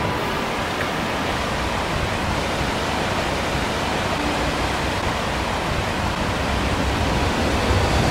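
River rapids rushing through a rocky gorge below: a steady, even noise of fast white water.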